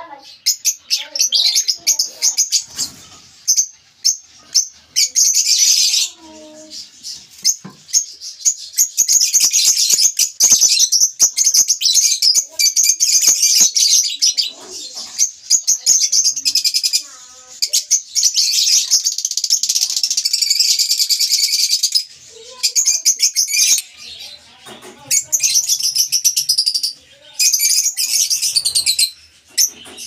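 Lovebirds chattering: a dense, high-pitched stream of rapid chirps and squeaks that stops briefly several times, around 6 s, 17 s, 22 s and 24 s in.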